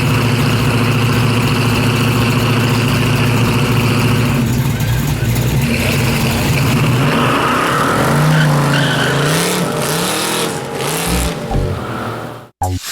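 Loud car engine running at a steady pitch for about four seconds, then revving up and down. It cuts off suddenly near the end.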